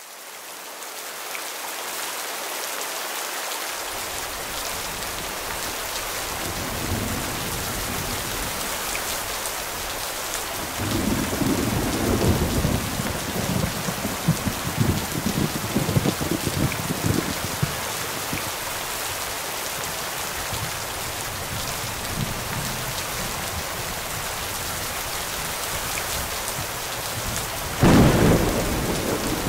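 Steady rain hissing, fading in over the first few seconds, with a long rolling rumble of thunder in the middle and a sudden, louder clap of thunder near the end.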